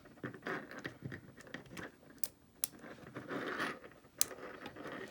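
Lock pick and tension wrench working in a Brinks ProMax padlock's keyway: small metallic scrapes and clicks as the pins are probed, with a few sharper ticks.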